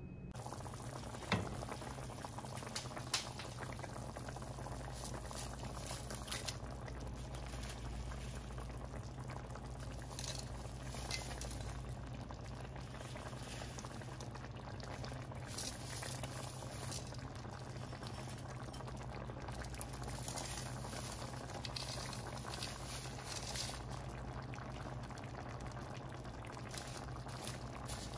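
Tomato broth boiling in a pot on the stove, a steady bubbling, with two sharp clicks a second or so in and about three seconds in.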